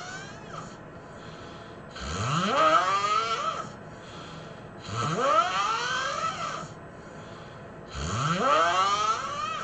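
A person snoring: three long snores about three seconds apart, each sweeping steeply upward in pitch, with quieter gaps between them.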